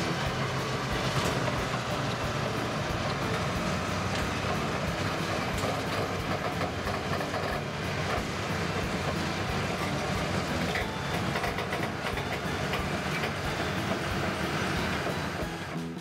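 Steady machine-engine sound with a rapid clattering rattle like crawler tracks, going with a toy crawler bulldozer being pushed through sand; it drops off suddenly at the end.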